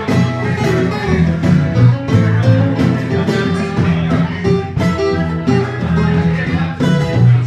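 Live band playing with acoustic guitars over drum kit and congas, to a steady beat.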